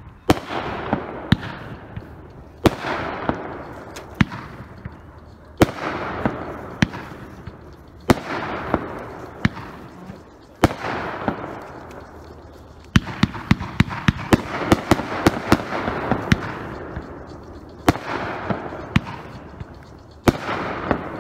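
Havana Nights aerial firework cake firing shot after shot: a sharp bang about every second or so, each followed by a fading hiss. About two-thirds of the way through, a quicker volley of bangs comes.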